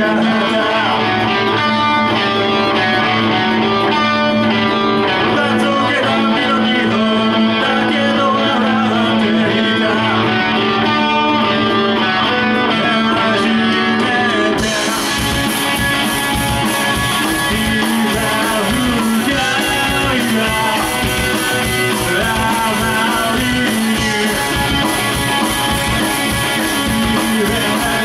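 Live rock band without a bass guitar playing: electric guitar leads at first, and about halfway through the band comes in fuller, with cymbals and drums.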